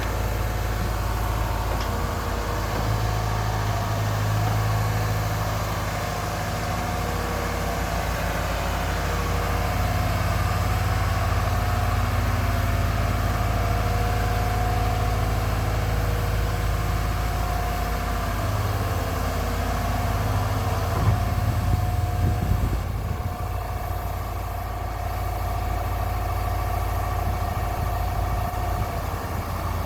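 Diesel engine of a 1994 Atlas 1304 wheeled excavator running steadily at low revs, with a few short knocks about twenty-one seconds in.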